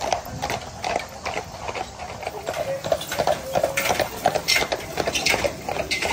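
Hooves of several carriage horses clip-clopping on a paved road as horse-drawn wagons pass close by, a quick, uneven run of knocks.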